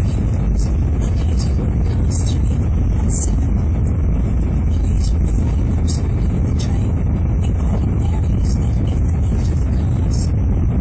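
Cabin noise of a Kyushu Shinkansen train running at speed: a steady, heavy low rumble with light irregular ticks above it.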